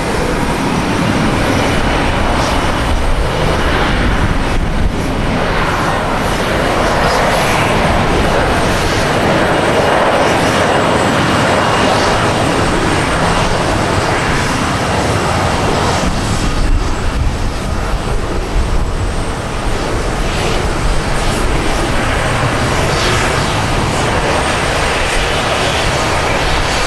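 Jet engine noise from a Boeing 787-9 airliner landing, its Rolls-Royce Trent 1000 turbofans running loudly and steadily throughout.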